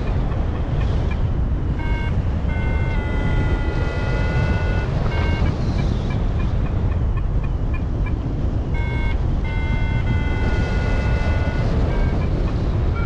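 Airflow rushing over the microphone in flight, with an electronic variometer beeping over it: a steady run of short pips and several longer held tones.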